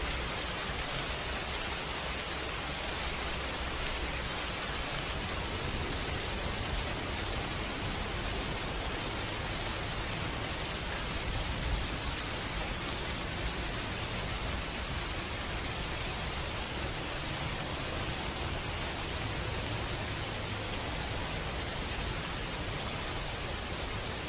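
Steady, even hiss-like noise with a faint low rumble underneath and no distinct events.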